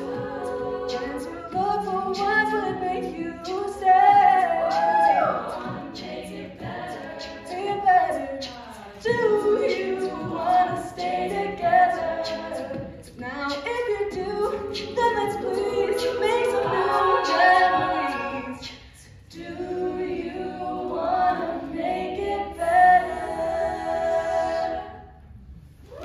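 Women's a cappella group singing in close harmony, a solo voice over the backing voices, with a steady percussive beat. The song closes and the singing dies away about a second before the end.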